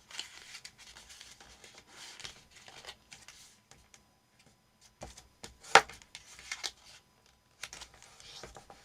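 Printer paper rustling as it is folded and creased by hand, with scattered light taps and one sharper tap a little past the middle.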